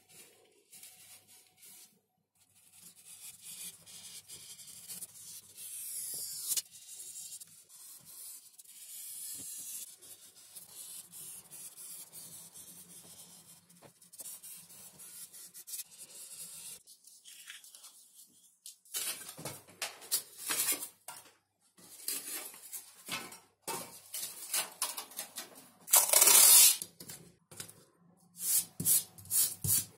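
A pen tracing around a paper template on a Depron foam sheet, with the paper rubbing and shifting: a soft, dry, scratchy hiss. Later come hands handling paper and masking tape, with short sharp rips as the tape is pulled, one louder, longer rip near the end, and tape being pressed down.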